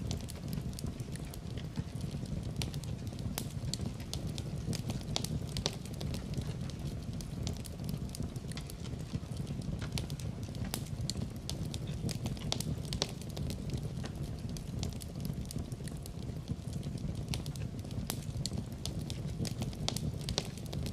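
Wood fire crackling in a fireplace: a steady low rumble of the flames with frequent sharp, irregular pops and snaps.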